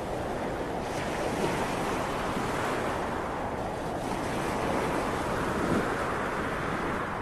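Sea waves breaking and washing ashore in a continuous rush that swells and eases, with wind buffeting the microphone.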